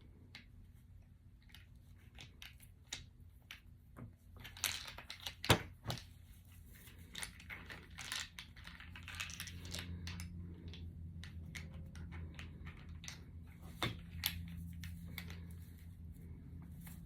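Handling of a copper pipe crimping tool and its packaging: irregular rustling and crinkling of plastic with clicks and knocks of the tool's parts, one sharp click about five seconds in. A low steady hum comes in about seven seconds in.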